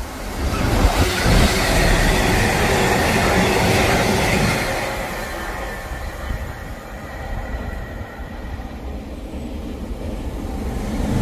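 DB Cargo Class 66 diesel locomotive running light through a station. Its two-stroke V12 engine and its wheels on the rails are loud for the first few seconds, then fade as it goes away. Another train's noise starts to rise near the end.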